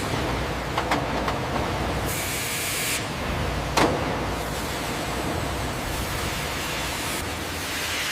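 Sawmill machinery running with a steady hiss and low rumble. There are a few sharp clicks about a second in and one loud knock just before four seconds in.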